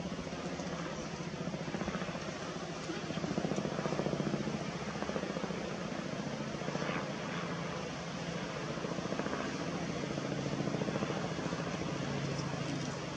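A steady low engine drone with a fast, even pulse, swelling slightly about four seconds in and again near eleven seconds.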